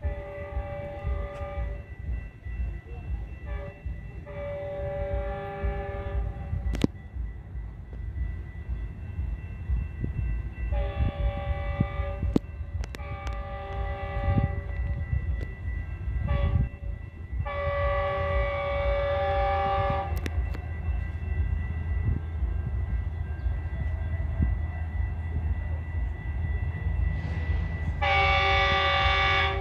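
An approaching Metrolink train's locomotive horn sounding a series of multi-note chord blasts, mostly long with a few short ones, in groups, with a low rumble underneath.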